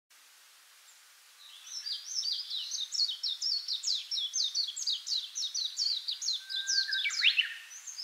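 A bird singing: a long, fast run of short, high, falling notes, about four a second, starting about a second and a half in.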